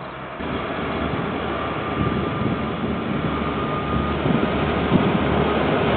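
KiwiRail diesel-electric locomotive hauling a container train, its engine rumbling and growing louder as it approaches. The sound jumps up suddenly about half a second in, and a faint steady whine is heard in the middle.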